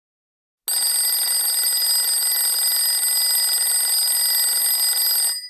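Countdown timer's alarm ringing once the count reaches zero, signalling that time is up. It starts about half a second in, rings steadily with several high tones, and cuts off suddenly near the end.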